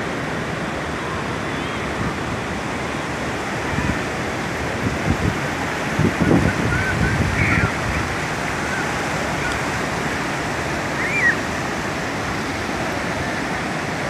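Sea surf breaking on a shallow sandy beach: a steady rush of small waves washing in, louder for a few seconds in the middle.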